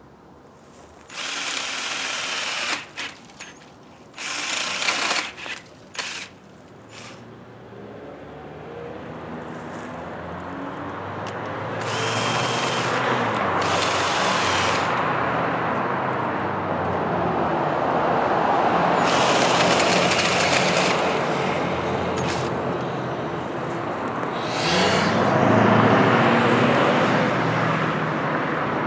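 Cordless drill driving a 6-inch chainsaw attachment, cutting a tree branch. First come several short bursts, then a long stretch of the chain running steadily through the wood, its loudness rising and falling with the load.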